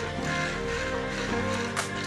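Background instrumental music: held notes that change every half second or so, with a sharp percussive hit near the end.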